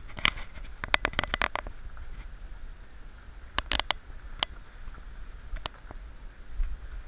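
Muffled low rumble of an off-road Jeep Wrangler crawling over a rough dirt trail, with irregular sharp knocks and clicks in quick clusters as the vehicle jolts over the bumps.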